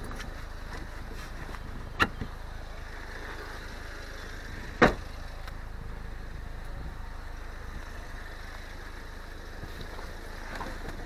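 Two sharp clicks, about two and five seconds in, over a steady low rumble as the car's fabric soft top is handled; softer handling noises at the open driver's door near the end. The engine is not yet running.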